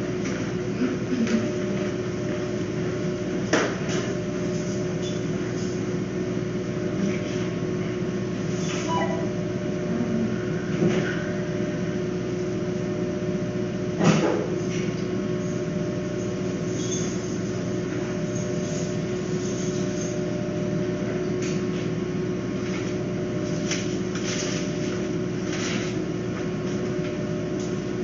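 Steady mechanical hum with several held tones, broken by a few light knocks and clicks, the loudest about 14 seconds in.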